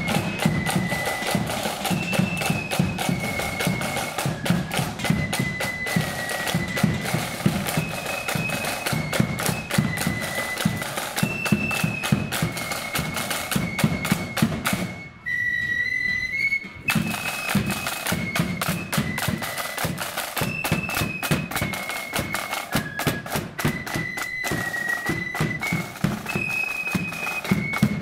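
Loyalist marching flute band playing a tune: flutes carry the melody in held high notes over rapid side-drum strokes and bass-drum beats. About halfway the drumming stops for a moment, leaving a single held flute note, then starts again.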